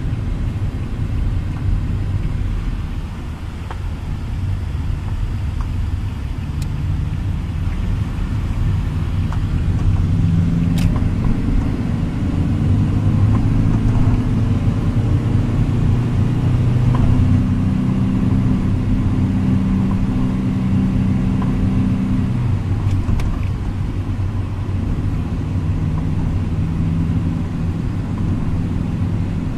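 Car engine and road noise heard from inside the cabin while driving: a steady low rumble that grows louder through the middle, with a few faint clicks.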